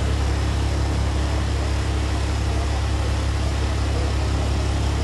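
Steady low rumble of a vehicle engine running, even throughout with no changes.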